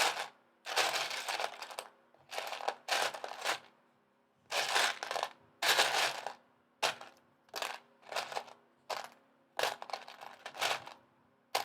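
Loose plastic Lego pieces clattering as a hand rummages through them, searching for a part, in repeated short bursts about once a second. A faint steady fan hum runs underneath.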